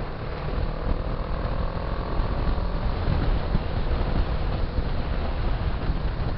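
Motorcycle riding along a gravel road, heard from on the bike: a steady rumble of engine, tyres and wind buffeting the microphone, with a faint engine note that rises slowly about a second in.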